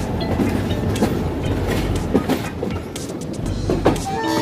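Passenger train running at speed through a junction, heard from an open coach door: the steady rumble of the coaches with wheel clicks and clatter as they cross rail joints and points.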